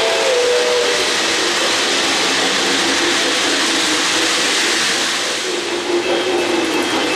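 O-gauge model trains running on three-rail track: a steady rolling rumble and clatter of wheels and motors. A steam whistle dies away in the first half second.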